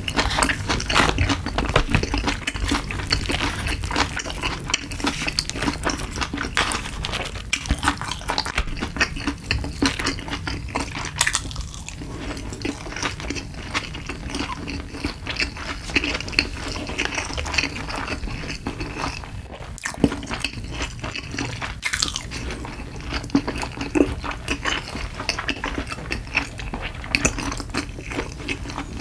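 Close-miked chewing of a full mouthful of food, a dense run of small irregular crackles and clicks, with a few sharper ticks now and then.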